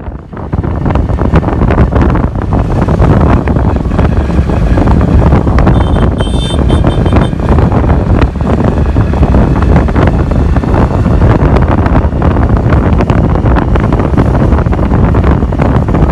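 Wind buffeting the microphone on a moving motorcycle, over the rumble of the motorcycles' engines. A brief high-pitched beeping comes about six seconds in.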